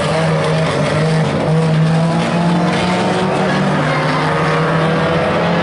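Engines of old saloon and estate banger-racing cars running hard round an oval track: a loud, steady drone that wavers slightly in pitch as the cars lap.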